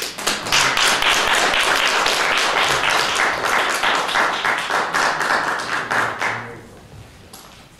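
Audience applauding, a dense patter of many hands clapping that fades away about a second before the end.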